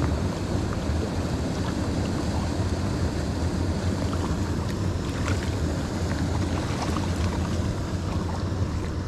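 Steady rush of water pouring over a small weir into a channel, under a low rumble of wind on the microphone. Faint splashes now and then come from a hooked rainbow trout thrashing at the surface.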